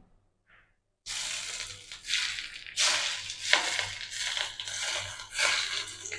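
Pork sizzling in a frying pan, the crackle swelling and fading in uneven bursts after about a second of quiet.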